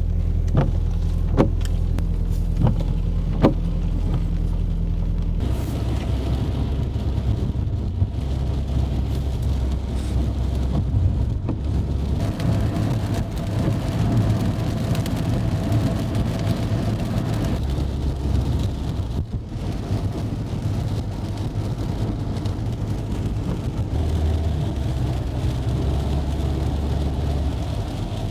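Car running in heavy rain: a steady low engine hum with a few clicks in the first five seconds, then a fuller wash of rain and wet-road noise.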